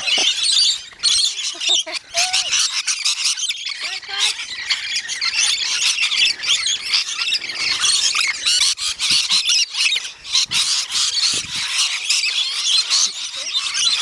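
A large flock of rainbow lorikeets feeding, calling shrilly and continuously in a dense overlapping din of squawks and chatter.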